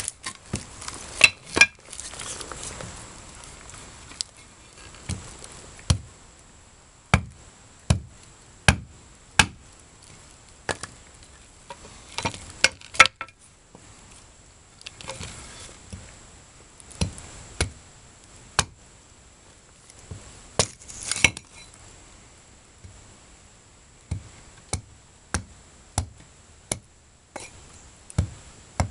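Dull axe chopping and splitting small upright pieces of fatwood (resin-soaked pine stump wood): a long series of sharp, irregularly spaced chops, sometimes two or three in quick succession.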